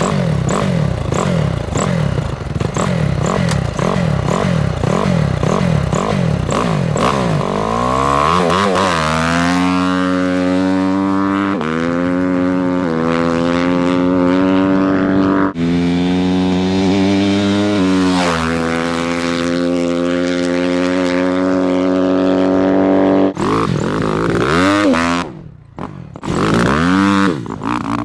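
Four-stroke motocross bike engine under throttle. The pitch wavers up and down at first, then climbs and drops back in steps several times as it shifts through the gears. Near the end the throttle is chopped off and opened again.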